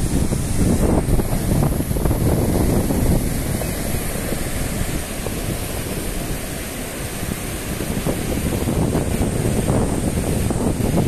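Ocean surf breaking and washing up a sandy beach, with wind rumbling on the microphone. The wash dips a little about halfway through, then builds again.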